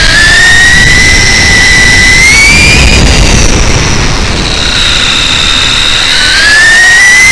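The brushless motor and gear drivetrain of a Traxxas E-Revo 1/10 electric RC truck (Hobbywing 2200kv sensored motor) whine under throttle, heard from an onboard camera. The whine rises in pitch over the first three seconds, fades, then rises again near the end, over a steady low rumble of the tyres and chassis on asphalt.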